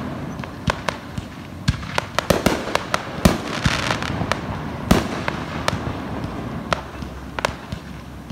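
Fireworks going off in a quick, irregular run of sharp bangs and cracks, the loudest about three and five seconds in, with a spell of crackling hiss in between.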